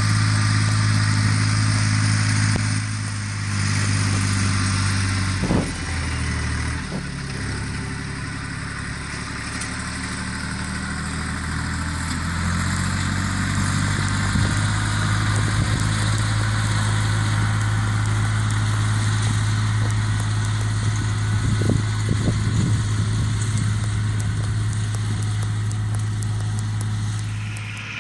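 Air-cooled Deutz diesel tractor engine running steadily under load while pulling a rotary hay rake. The engine note dips briefly about five to seven seconds in, and a few short knocks sound around then and again a little past twenty seconds.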